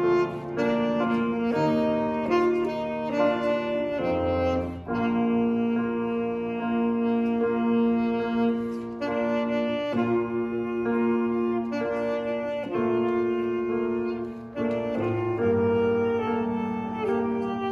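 Saxophone playing a slow lullaby melody in long held notes, with grand piano accompaniment underneath.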